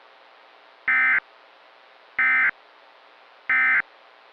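Three short bursts of Emergency Alert System SAME data tones, a harsh digital buzz about a second apart, over a faint hiss. Coming right after the spoken alert, they are the end-of-message code that closes an EAS broadcast.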